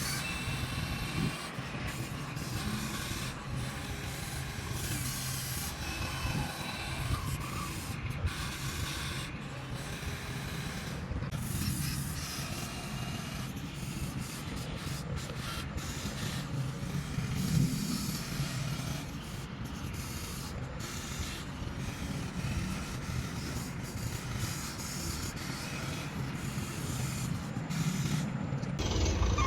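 Radio-controlled model excavator working in sand: its small electric motors and gears whir continuously while sand scrapes and pours.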